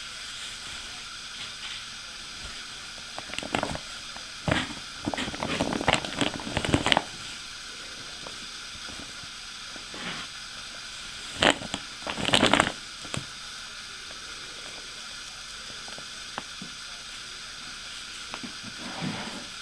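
Woven plastic Bag for Life crinkling and rustling as a kitten wriggles and paws inside it, in two spells of quick scrunches, about 4 to 7 seconds in and around 12 seconds in, with a fainter rustle near the end. A steady hiss runs underneath.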